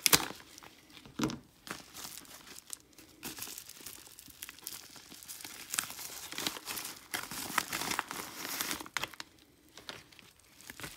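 A bubble mailer being torn open and handled: irregular crinkling, rustling and tearing of the padded envelope, with sharp clicks, busiest in the middle and thinning out near the end.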